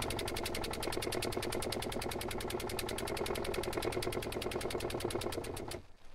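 Mamod Minor 1 single-cylinder toy steam engine running flat out with no speed control, giving a fast, even stream of exhaust puffs and mechanical clatter. It cuts off suddenly near the end.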